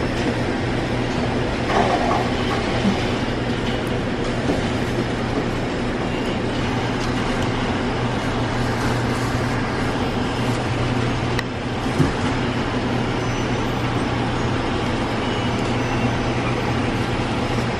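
Steady low mechanical hum under a constant even noise, with a single sharp knock about twelve seconds in.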